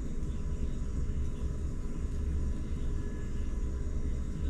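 Steady low rumble with a faint constant high tone, unchanging throughout, with no distinct tool clicks.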